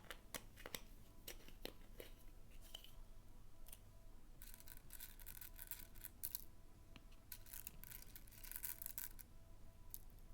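Slime being worked by hand: faint sticky crackles and small clicking pops, coming in denser runs of crackling in the middle and later part.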